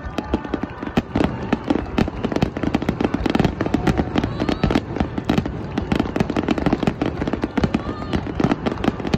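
Japanese aerial fireworks shells bursting in a dense barrage: a rapid, continuous crackle of many small reports, with heavier bangs mixed in about every second.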